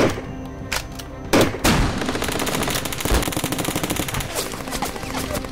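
Gunfire sound effects added in editing to a toy-blaster fight: a few single shots in the first second and a half, then a long rapid burst like machine-gun fire.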